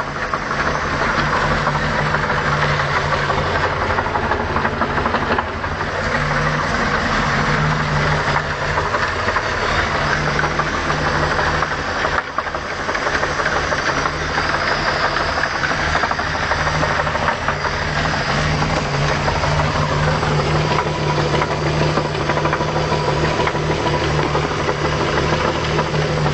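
OMC Cobra 4.3 V6 marine engine idling steadily while warming up, with a knock in its running: the sign of internal engine damage.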